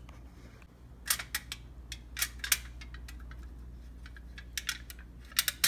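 Aluminium foil crinkling and crackling over a plastic cup as a wooden popsicle stick is pushed through it, in clusters of sharp crackles about a second in, around two seconds in, and again near the end.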